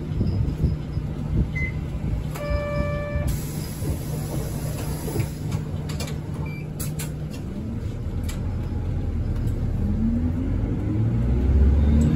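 Interior of a city bus: the engine running low, with a short electronic beep about two and a half seconds in. Near the end the engine climbs in pitch and grows louder as the bus accelerates.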